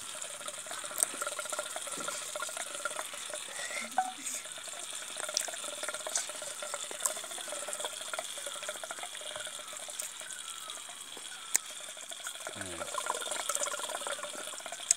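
A young child eating by hand from a steel bowl and tipping it up to her mouth near the end: wet, slurpy mouth sounds with a few sharp clicks. Faint high chirps sound throughout.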